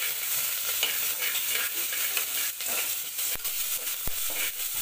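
Onions, curry leaves and garlic paste sizzling in oil in a pressure cooker pot while a metal ladle stirs and scrapes across the bottom. The ladle knocks sharply against the pot twice in the second half.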